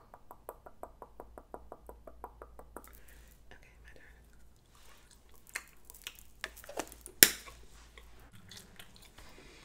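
Close-miked gum chewing: a run of quick, even mouth clicks, about six a second, for the first few seconds. Then scattered wet clicks, with one sharp, loud click about seven seconds in.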